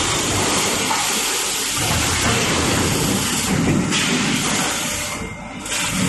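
Loud, steady hissing spray with a low rumble underneath, easing off briefly about five seconds in: an automatic graphite spray system spraying die lubricant on a hot-forging line.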